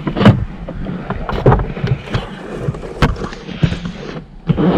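Several sharp knocks and clicks over rustling, rumbling handling noise, as of things being moved about by hand.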